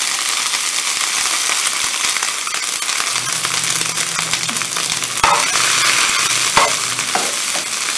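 Rehydrated, squeezed-out soy granules sizzling in hot oil in a frying pan as they are tipped in and stirred with a spatula: a steady dense sizzle with fine crackling. Two sharp knocks come a little past halfway.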